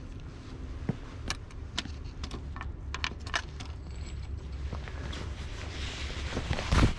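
Handling noise: a run of sharp clicks and small knocks, over a low rumble of wind on the microphone, with a heavier thump near the end.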